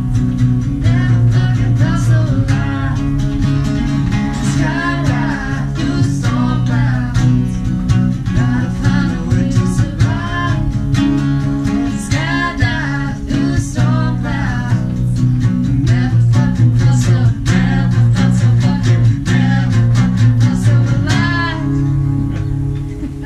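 Two acoustic guitars strumming chords with a voice singing over them; the song winds down and fades out at the very end.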